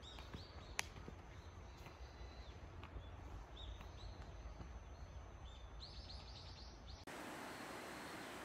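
Quiet outdoor ambience with birds chirping on and off, and a single sharp click about a second in. Near the end the sound cuts abruptly to a steady hiss.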